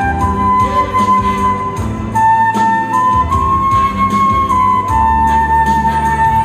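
A flute playing a slow melody of long held notes that step between a few pitches, over a backing accompaniment with bass and chords.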